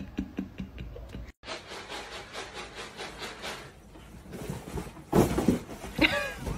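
Scratching and scraping against cardboard, rough and repeated, as from a cat clawing inside a cardboard box. About five seconds in the box is knocked over with a loud thud, and a short, high cry with a wavering pitch follows. In the first second, before the scratching, there is laughter.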